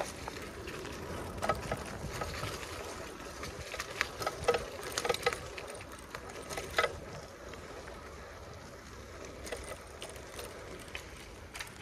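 Bicycle being ridden over a rough path: steady tyre and wind noise, with sharp rattles and clacks from the bike over bumps, most of them between about one and seven seconds in.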